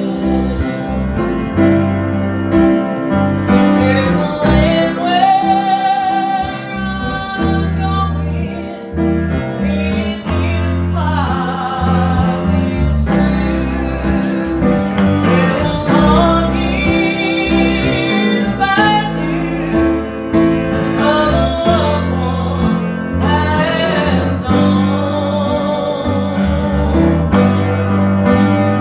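Women singing a gospel song with instrumental accompaniment, the voices holding and sliding between long notes over a steady bass and guitar.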